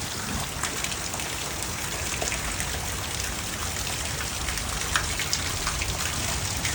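Heavy rain falling steadily, with water pouring off a roof and drops splattering in sharp ticks, one louder splat about five seconds in.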